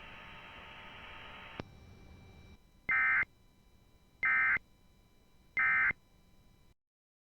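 Faint radio hiss with a single click, then three short, identical bursts of warbling data tones about 1.3 seconds apart. This is the Emergency Alert System End of Message (EOM) code that closes a broadcast weather warning.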